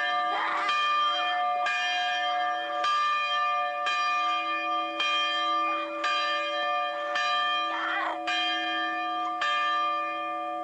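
Large cast bronze camp bell swung on its rope and ringing. It clangs about once a second, about nine strokes, and each stroke rings on into the next.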